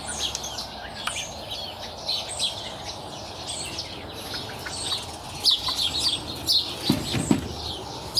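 Young chickens peeping and chirping: many short, high cheeps from several birds at once, busier and louder in the second half.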